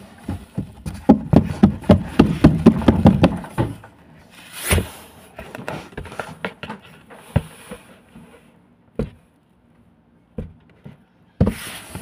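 Plush toys and a cardboard box being handled: a quick run of knocks and taps for about three seconds, one louder thump about five seconds in, then a few scattered single knocks.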